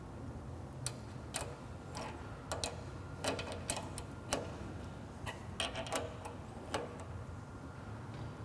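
Irregular light clicks, about fifteen of them, from an Allen wrench and a combination wrench on a set screw and jam nut as the nut is re-tightened against the drum sander's cast-iron table support casting, over a faint steady low hum.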